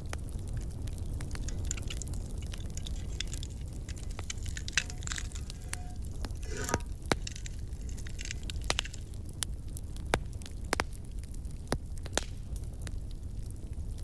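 Small wood fire crackling, with scattered sharp snaps and pops over a steady low rumble. There is a brief louder scraping rustle about halfway through.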